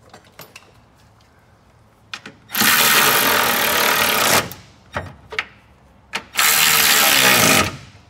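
Milwaukee cordless ratchet spinning the module's retaining nuts down in two bursts of under two seconds each, its pitch dropping near the end of each run as the nut tightens. There are a few sharp clicks in between.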